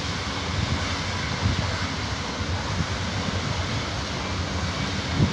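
Deutsche Bahn ICE train running past at speed, a steady rolling noise of wheels on rail, with wind buffeting the microphone.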